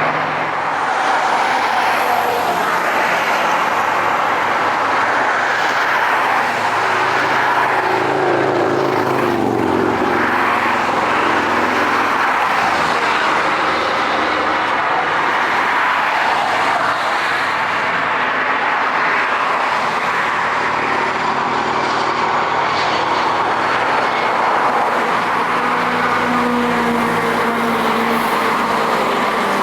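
Jet airliner taking off, its engines at takeoff thrust making a loud, steady rushing noise, with a high turbine whine rising about a second in.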